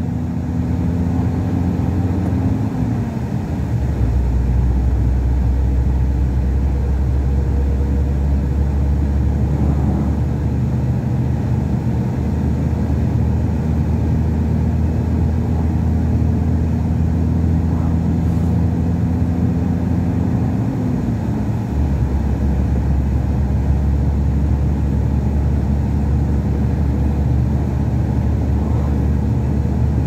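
A truck's diesel engine and road noise while driving, a steady low drone. The engine note slides down twice, about 3 s in and again about 21 s in.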